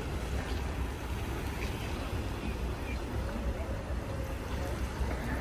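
Harbour water lapping against a sandstone seawall over a steady low rumble.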